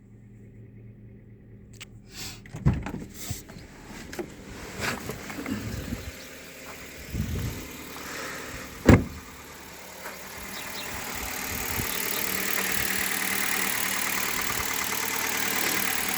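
Hyundai Solaris engine idling cold just after start-up, with a few thumps and one sharp click about nine seconds in; from about ten seconds the engine's steady running sound grows louder and holds. Running on fresh 5W-30 oil, it shows none of the knock that the owner heard with earlier oils.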